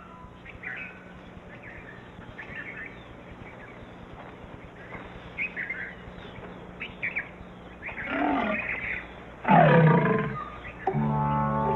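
Asiatic lioness snarling twice, about eight seconds in and again louder a second later, after scattered bird chirps. Music with steady held notes comes in near the end.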